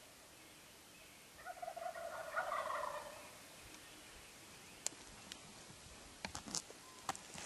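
A wild turkey gobbler gobbling once, a rattling call of a little under two seconds starting about a second and a half in. A few faint clicks follow near the end.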